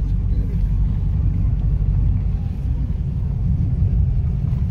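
Steady low rumble of a 4x4 driving on a snow-covered road, engine and tyre noise heard from inside the cabin.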